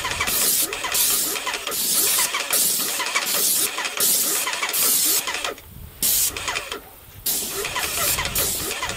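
Electric airless paint sprayer in use: the spray gun hisses in short bursts, about two a second, as the trigger is pulled stroke by stroke, with the sprayer's pump motor running underneath. The hissing stops for about a second and a half just past the middle, then starts again.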